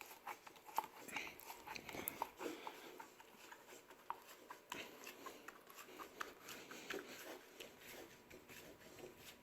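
Faint, irregular squeaks, clicks and rubbing of a rubber Tacki-Mac grip sleeve being twisted into place on a hockey stick shaft over wet hairspray.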